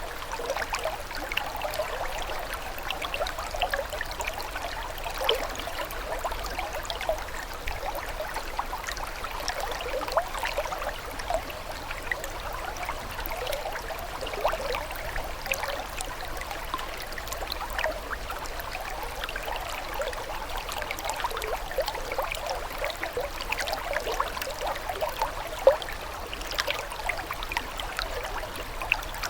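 Running water trickling and babbling steadily, a dense patter of small splashes and gurgles, with one slightly louder splash near the end.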